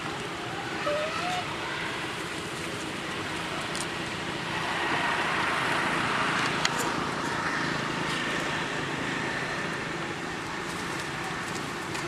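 Outdoor background noise: a steady hiss that swells for a few seconds in the middle, with a few short, faint rising chirps about a second in.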